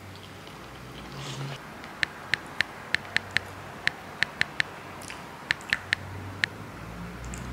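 Typing on a smartphone's on-screen keyboard: about a dozen short, sharp clicks in quick, irregular runs, starting about two seconds in.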